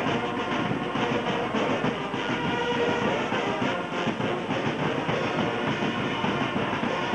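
Music with a steady drum beat and held tones, continuous and loud.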